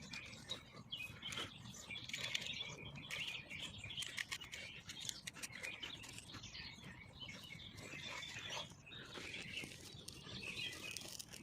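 Dry twigs, pine needles and birch bark rustling and crackling as they are handled and laid for a fire, with many small snaps and ticks.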